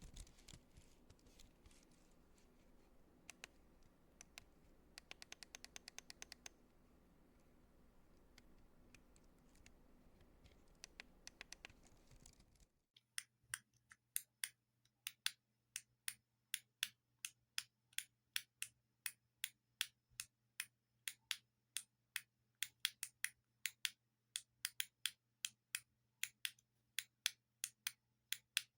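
Buttons being clicked: faint, quick runs of clicks over a low hum, then after an abrupt change a little under halfway through, crisp single and paired clicks at about two a second.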